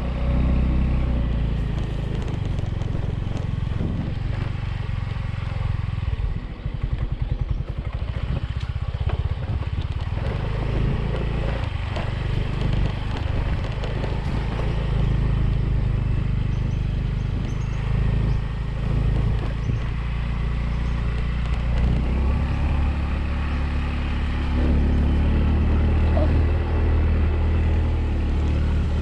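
Yamaha 125 cc automatic motorbike engine running as it is ridden, its note shifting with the throttle; for a couple of seconds, about six seconds in, the sound breaks into rapid pulses.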